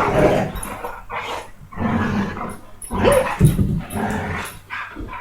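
A dog vocalizing in several short bouts, each about a second long, with short gaps between them.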